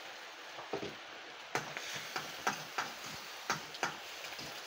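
Metal ladle clinking and scraping against a steel wok as egg is scrambled in it, a couple of light taps and then quick clinks about three a second from a second and a half in, over a steady hiss.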